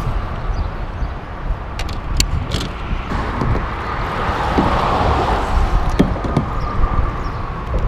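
Freeway traffic on the I-10 overpass overhead: a steady rumbling drone that swells as vehicles pass about four to five seconds in. A few sharp clicks come about two seconds in.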